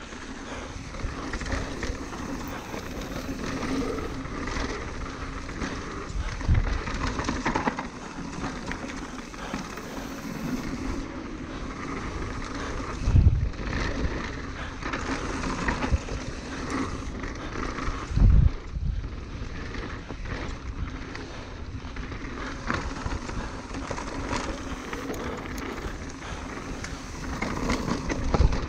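Norco Range enduro mountain bike descending a dirt trail at speed: a steady rolling rush of tyres over dirt and rocks, broken by three heavy low thumps, the loudest about 13 and 18 seconds in.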